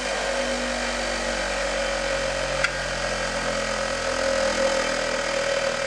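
Bench grinder running steadily with an even hum, cleaning the threads of an air compressor's pressure gauge. A single sharp tick about two and a half seconds in.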